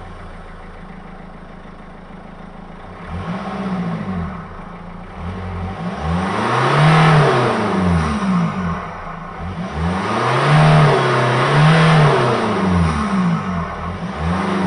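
Renault 1.5 dCi four-cylinder turbo diesel engine idling, then revved up and down several times from about three seconds in, the revs held high for a couple of seconds twice before dropping back.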